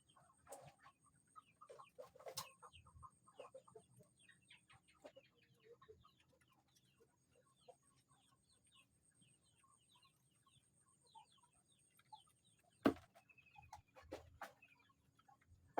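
Faint, scattered bird calls and chirps, some as quick falling notes, with a sharp knock about thirteen seconds in.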